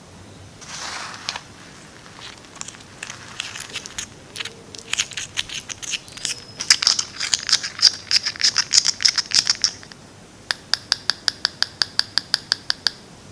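A short splash of water poured into a tiny glass bowl of flour, then a miniature wire whisk beating the batter and clinking rapidly against the glass with a light ringing tone. Near the end the strokes settle into an even, fast ticking, about six a second.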